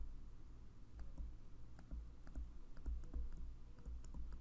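Faint, irregular clicks and taps of a stylus on a tablet as a word is handwritten, over a low steady hum.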